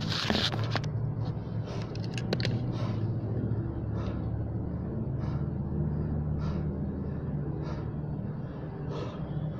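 A steady low hum, with quick breaths about every second and a quarter over it.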